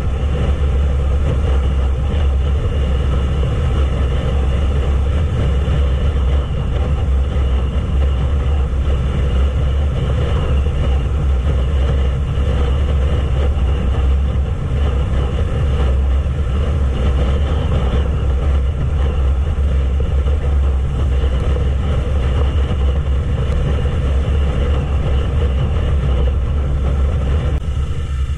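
Wind buffeting the microphone at cruising speed, over the steady drone of a Yamaha YZF-R3's parallel-twin engine.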